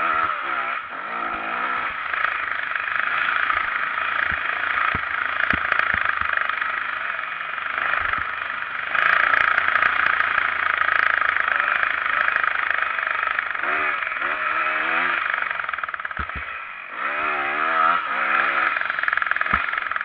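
Motocross bike engine revving up and down as the rider accelerates and shifts, under a steady rushing noise that is loudest partway through.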